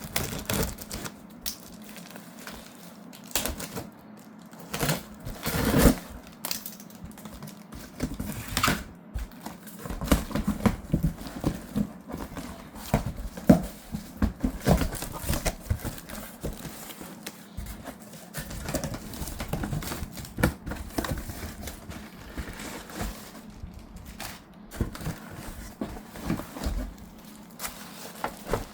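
Packaging of a boxed ceiling fan being handled: plastic wrap and cardboard crinkling and rustling, with many irregular clicks and knocks, thickest about halfway through.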